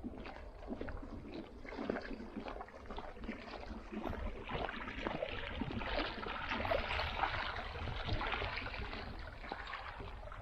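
Lake water lapping and splashing irregularly, busier through the middle, over a low rumble of wind on the microphone.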